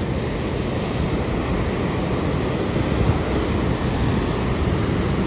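Steady rush of water from the Buffalo Bill Dam outlet jet crashing into the river at the bottom of the canyon, with wind buffeting the microphone.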